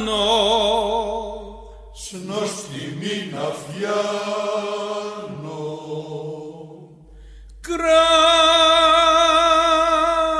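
Male choir singing a Macedonian folk song, holding long chords with vibrato, then a more moving passage in the middle before a new long held chord near the end.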